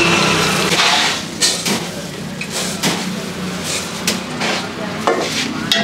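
Hot oil sizzling in a wok of frying fritters for about the first second. Then scattered knocks and clatter of steel utensils as dry split peas are scooped from a sack with a steel bowl, over a low steady hum.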